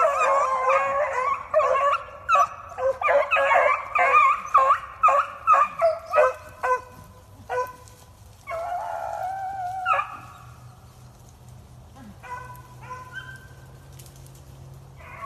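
Pack of beagles baying and barking, several voices overlapping for the first six or seven seconds, then thinning to scattered barks, with one long held howl about nine seconds in and a few fainter yelps near the end.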